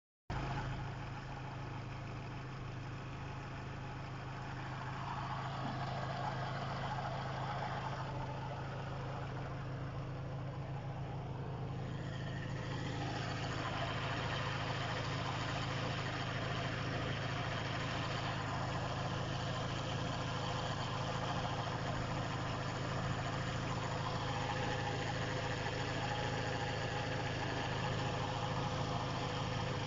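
Volkswagen Jetta A4 engine idling steadily, with a noise that the owner places inside the 'caja de aceite' and cannot identify. The sound grows a little louder and brighter about 13 seconds in.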